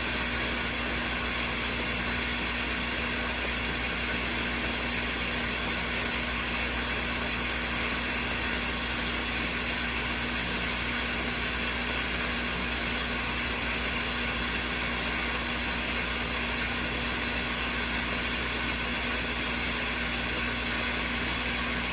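The wash tub of a compact twin-tub washing machine running steadily, its motor humming at a constant level.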